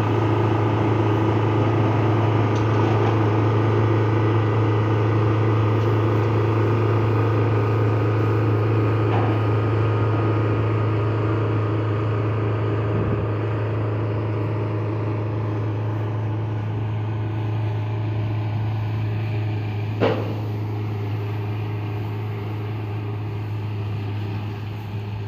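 Kubota DC-70 combine harvester's diesel engine running at a steady, even speed, with a strong low hum that slowly gets quieter over the second half. A single sharp metallic clank sounds about twenty seconds in.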